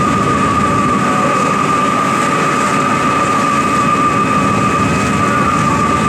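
Ferry boat underway: a steady engine drone with a continuous high-pitched whine over it.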